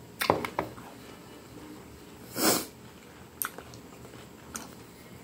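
Close-miked chewing of a mouthful of coxinha, with a few wet mouth clicks, and a short, louder breathy rush about halfway through.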